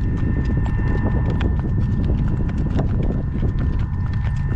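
Hoofbeats of a young driving horse clip-clopping on a road, over a steady low rumble.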